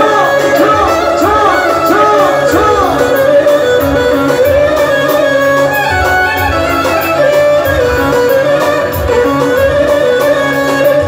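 Live folk dance music on an electronic keyboard: a fast, ornamented lead melody in a fiddle-like voice over a steady beat.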